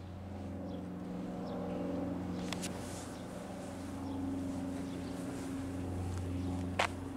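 Steady low machine hum with a clear pitch, like a motor running nearby, with a sharp click about two and a half seconds in and a louder click near the end.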